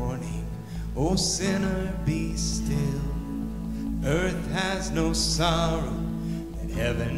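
Music: a voice singing over guitar accompaniment, with held low bass notes underneath.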